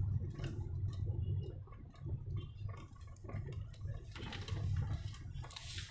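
Low rumble of a car's engine and tyres heard inside the cabin while creeping through traffic, with scattered small clicks. A hiss builds from about two-thirds of the way in and is strongest near the end.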